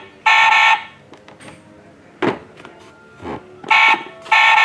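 Battery-powered toy car's try-me sound effect: two short buzzy electronic tones in quick succession, heard right at the start and again nearly four seconds in as its button is pressed, with a couple of soft knocks in between.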